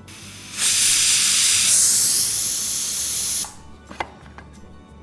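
Pressure cooker whistle: steam venting hard through the weight valve as a loud hiss lasting about three seconds, the whistle that counts off the cooking time. A single sharp click follows about a second later.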